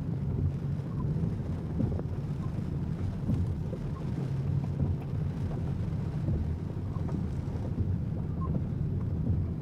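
Wind buffeting the microphone: a steady low rumble that swells and dips in gusts, with no pauses.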